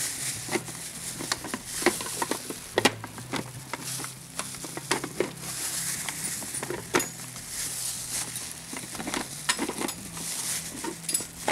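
Irregular clicks, taps and light clatter of kitchen utensils and containers being handled and cleared on a counter, over a steady low hum.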